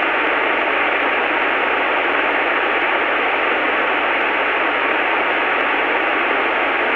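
Steady hiss of a T-34A Mentor's cockpit noise on final approach, with the engine throttled back for a glide, heard through the aircraft intercom feed. A faint steady tone runs through the hiss.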